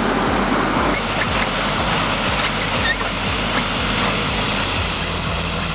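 A logging truck's engine runs under heavy load, with a steady rushing noise over a regular low pulsing.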